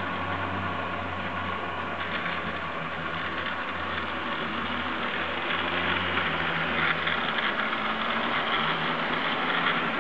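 Model train running along the track past the camera: a steady motor hum with wheels rattling over the rails, getting louder about halfway through as it comes close.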